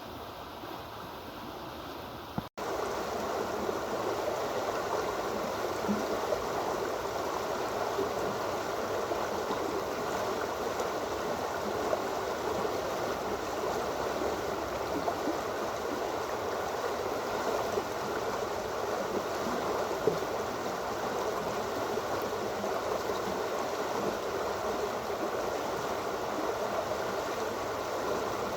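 Fast-moving floodwater rushing and gurgling through an overflowing canal after heavy rain, a steady churning flow. It breaks off for an instant about two and a half seconds in and comes back louder.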